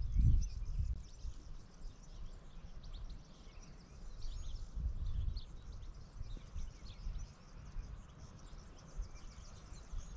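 Wind buffeting the microphone in gusts, loudest right at the start and again around four to five seconds in, with birds chirping throughout.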